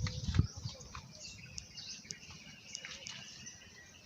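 Small birds chirping faintly in the background, with a couple of dull knocks near the start.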